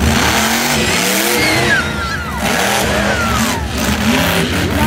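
Monster truck engine revving as the truck drives, its pitch climbing and then falling away in several long slides.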